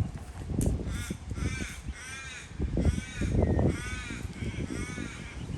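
A crow or raven cawing, a series of about six drawn-out, arched caws, with low rumbling noise underneath.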